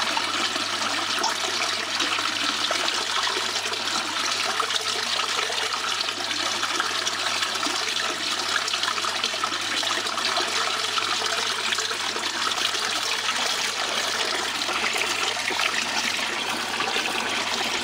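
Water running steadily across the deck of a DIY miller table, a gold-concentrate cleaning table set almost flat.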